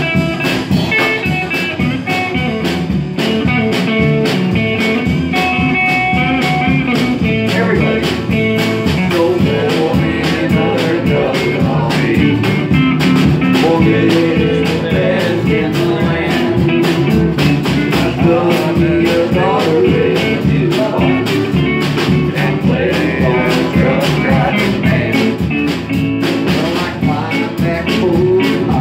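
Live small band playing a country-blues song: electric guitar and acoustic guitar with a singer's vocals, played continuously.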